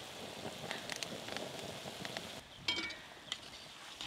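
Goja pastries deep-frying in oil in an iron wok, a steady sizzle and crackle of bubbling oil as they fry to golden. Past the midpoint, a slotted steel spoon clinks once against the wok.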